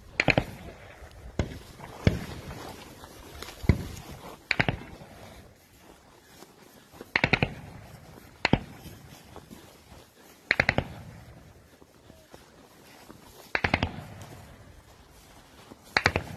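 Gunfire from soldiers' rifles: short bursts of two to five rapid shots alternating with single shots, one every second or few.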